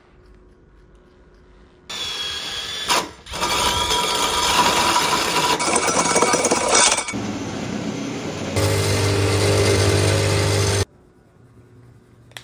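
Cordless drill running a hole saw through a wooden board, starting about two seconds in, in several spells that change abruptly, then stopping suddenly near the end.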